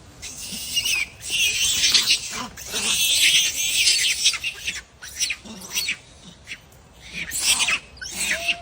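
A monkey screaming in loud, high-pitched shrieks, almost without a break through the first half, then in a few short cries and another burst near the end.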